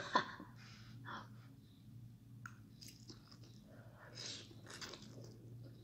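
Chewing and slurping a mouthful of instant noodles, with two louder slurps a little over four seconds in.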